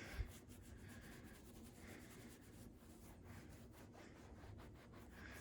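Near silence, with a faint scratchy rubbing of a bare hand working a pet stain into carpet pile.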